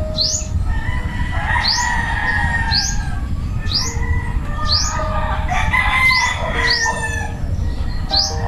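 A rooster crows twice, each crow about two seconds long, over background music with evenly repeating short rising chirp-like notes.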